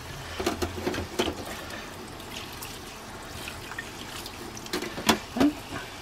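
Hot water tap running a thin stream into a stainless steel sink, with a few clatters of metal-framed air conditioner filters being shifted in the sink, around a second in and again near five seconds.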